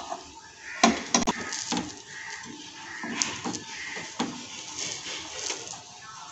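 Kitchen knife cutting through an egg-and-bread omelette in a non-stick frying pan, the blade knocking and scraping against the pan, with a quick cluster of knocks about a second in and lighter taps later. Animal calls sound in the background.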